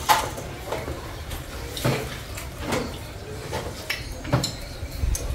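Scattered clinks and taps of chopsticks against plates and bowls as people eat noodles, a handful of sharp knocks spread over a few seconds.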